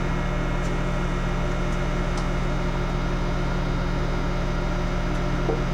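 Microwave oven (a microwave–air fryer combo) running a heating cycle from an inverter at about 1700 watts: a steady hum with a low, even drone.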